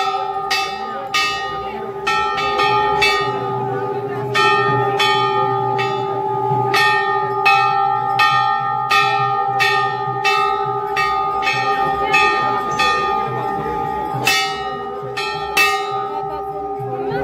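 Metal temple bells struck over and over, about two strokes a second with a few short pauses, each stroke ringing on into the next, with crowd voices underneath.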